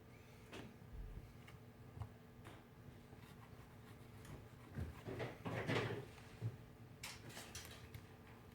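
Faint knocks and clicks of small objects handled on a workbench, with a brief louder rustling about five seconds in.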